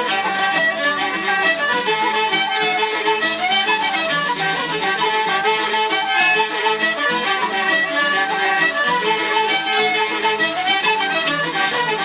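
Irish traditional band playing the closing bars of a jig set, with the fiddle leading the melody over steady rhythmic strumming and percussion.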